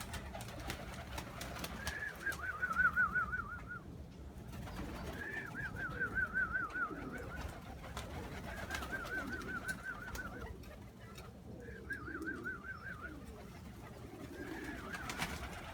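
Pigeons calling: a high, wavering trilled call comes four times, each lasting about a second and a half, with lower cooing between and beneath.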